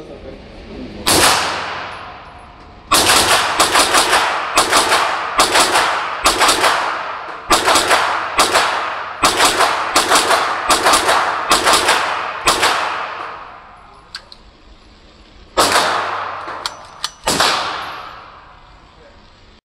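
AR-9 pistol (9mm AR) with a muzzle brake firing: one shot, then a quick string of about twenty shots at roughly two a second, then two more shots near the end, each ringing in an indoor range.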